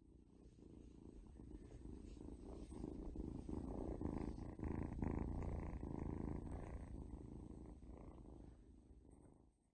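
Tabby kitten purring close up, a steady rough rumble that swells to its loudest about halfway through and fades toward the end.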